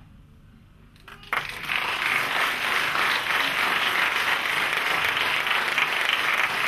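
Audience applauding, breaking out suddenly about a second in and then holding steady.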